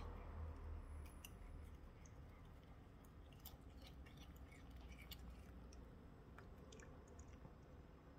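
A cat chewing and biting off blades of cat grass: faint, irregular crisp clicks and crunches over a low steady hum.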